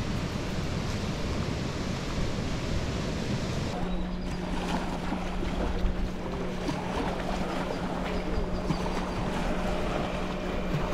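Wind and small waves on a beach shore. About four seconds in the sound changes to small waves lapping at the water's edge, with a steady low hum underneath.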